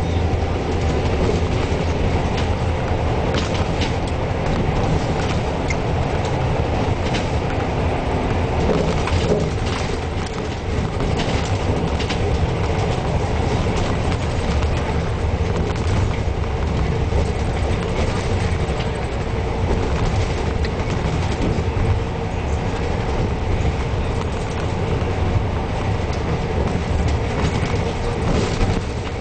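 Neoplan Centroliner double-decker bus cruising on a motorway, heard from inside the upper deck: a steady deep rumble of engine and road noise under a steady hum, with scattered clicks and rattles from the body.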